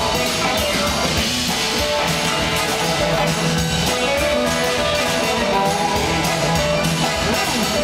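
Live blues-rock band playing an instrumental passage: electric guitars over a driving drum kit, with a horn section, heard from the audience.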